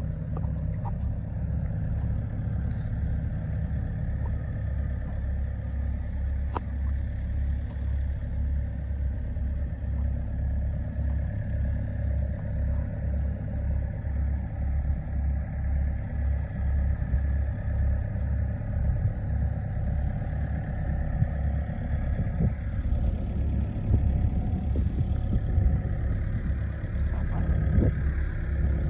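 Diesel engine of a 2019 Volvo ECR88D 8-tonne excavator running with a steady low throb. It gets louder and more uneven over the last several seconds, with a few sharp knocks.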